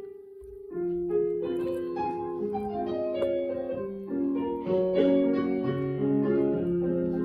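Piano music: a single held note, then from about a second in a flowing run of notes over held lower notes.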